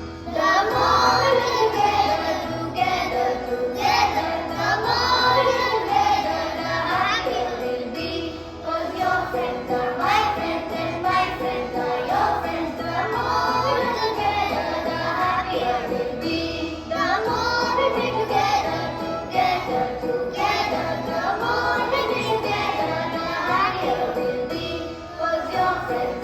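Children singing a song about friendship over instrumental backing. The music comes in loudly at the start.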